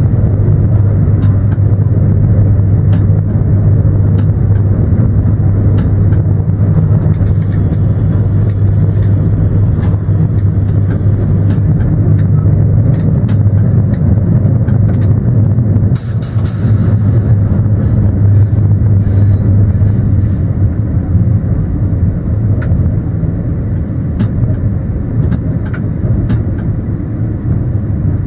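Train running along the line, heard inside the locomotive's cab: a loud, steady low hum from the locomotive with rumbling wheel and rail noise and scattered sharp clicks. A high hiss rises over it for a few seconds about a quarter of the way in.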